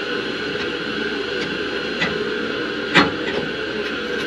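Handling noise from the boiler's circuit board being repositioned: a light knock about two seconds in and a sharper click about three seconds in, over a steady background hum.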